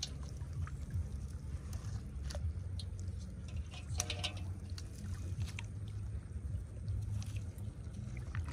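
Shallow water splashing and sloshing in short irregular bursts as people wade and lift branches out of it, over a steady low rumble.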